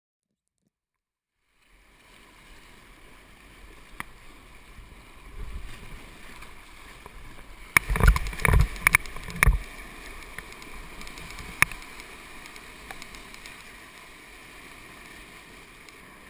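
Rushing whitewater of a river rapid, starting a couple of seconds in after silence, with a cluster of loud splashing thumps of water hitting the kayak and camera about halfway through.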